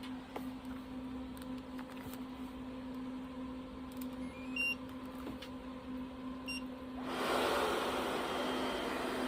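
A few short electronic beeps, then about seven seconds in a Repronizer 7D Plus hair dryer switches on and blows with a steady rush of air as it is tested after repair.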